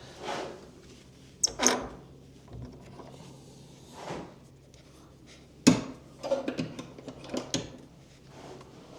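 Wooden viewing flap of a bird hide being unlatched and pushed open: a series of wooden scrapes and knocks, the sharpest about two-thirds of the way through, followed by a few quicker knocks.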